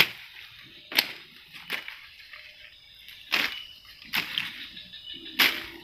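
Water splashing as a snagged cast net is worked free: about six sharp splashes and knocks at uneven intervals over a few seconds.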